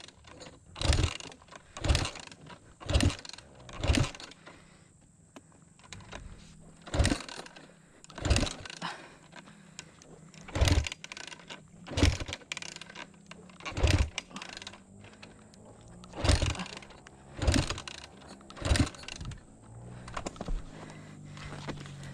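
Dirt bike being kick-started over and over without the engine catching: about a dozen kicks, at times one a second with short pauses between, each a sharp clatter with a low thump.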